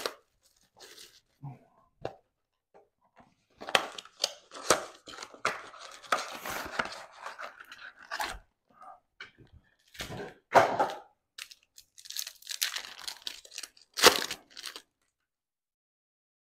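Clear plastic wrap crinkling and tearing as it comes off a trading-card blaster box, then rustling as the cardboard box is opened and the cards inside are handled. The crackling stops about fifteen seconds in.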